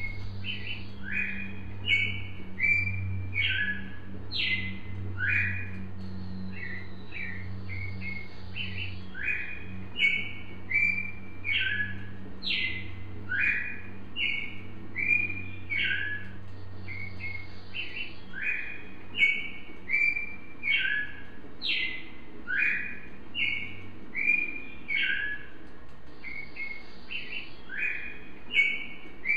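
A Brazilian cardinal (cardeal, a Paroaria species) singing: a steady string of short, clear whistled notes that jump up and down in pitch, the same phrase repeated over and over.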